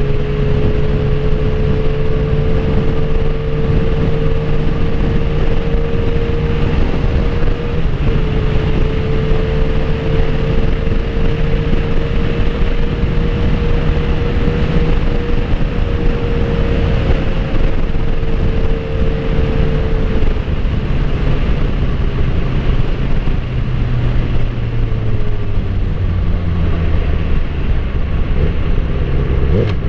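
Suzuki GSX-R1000 K8 inline-four engine running at a steady cruise with wind rush. Its note falls in pitch over the last few seconds as it slows.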